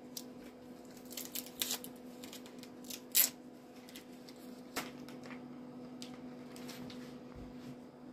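Gift packaging being cut and handled as it is opened: scattered crinkles, rustles and sharp clicks, the loudest about three seconds in, over a steady low hum.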